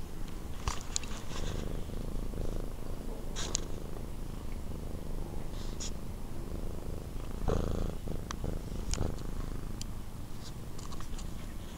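Domestic cat purring steadily, close to the microphone, with occasional short rustles and clicks, the loudest about two-thirds of the way through.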